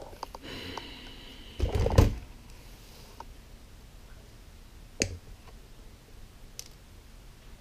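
Small hand tools and wire handled on a cardboard-covered workbench: a brief clatter about two seconds in, then a single sharp click about five seconds in, with light handling rustle in between.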